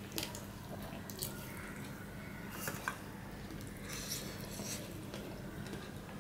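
Fingers mixing rice with fish curry on a steel plate, making wet squishing sounds, with a few light clicks of a serving spoon on the steel about a quarter second in and near three seconds in. A low steady hum runs underneath.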